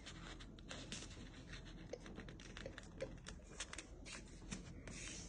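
Faint rustling and small ticks of a sheet of origami paper being folded and creased by hand against a table.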